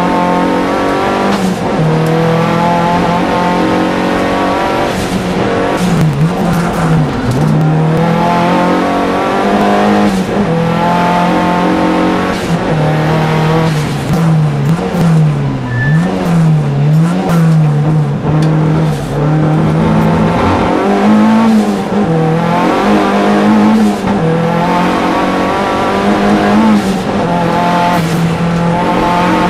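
Opel Calibra Turbo's turbocharged four-cylinder racing engine, heard from inside the cabin, running hard at high revs through a hillclimb run. Its pitch holds mostly steady, with several quick dips and recoveries as the driver lifts and changes gear for corners.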